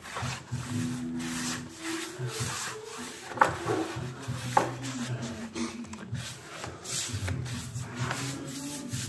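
Pad or brush rubbing across a hardwood floor in repeated short strokes, spreading polyurethane finish, with two sharp knocks in the middle.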